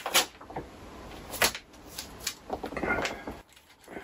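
Plastic specimen bag and paper rustling and crinkling as they are handled, with scattered light clicks and taps, while a barcode label is stuck on the bag. The handling stops about three and a half seconds in.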